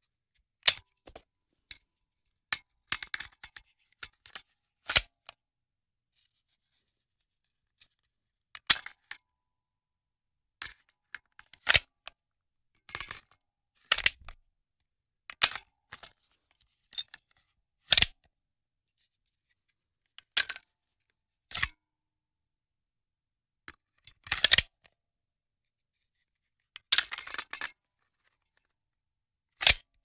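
Handgun magazine loading: a series of sharp metallic clicks and short rattles, each one separate, with silences of up to a few seconds between them.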